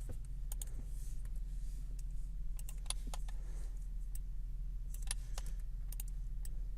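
Irregular clicks of a computer keyboard and mouse, over a steady low electrical hum.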